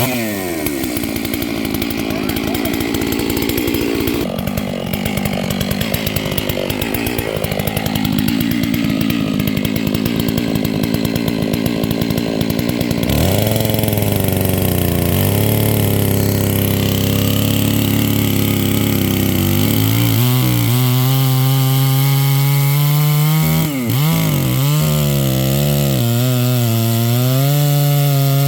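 Hanakawa 660 two-stroke chainsaw running just after starting, uneven at first, then opened up to high revs about halfway through, its pitch sagging and recovering under load as it cuts into wood.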